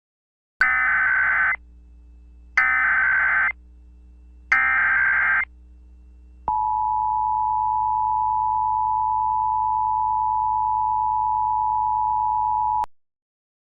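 Emergency Alert System tones: three one-second bursts of SAME header data, then the steady two-tone EAS attention signal for about six seconds, cutting off suddenly.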